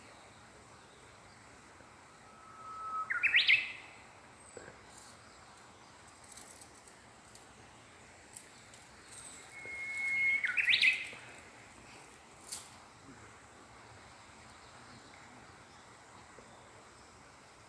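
A songbird singing two phrases several seconds apart, each a long held whistle that breaks into a quick flourish of higher notes. A short sharp click comes about two-thirds of the way through.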